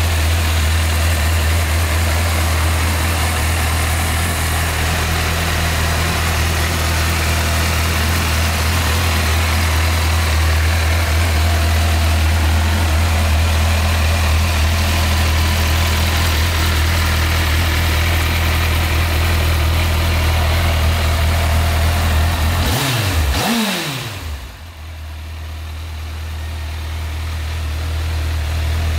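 Honda CBF1000's inline-four engine idling steadily. Near the end the sound briefly sweeps down and drops away, then builds back up.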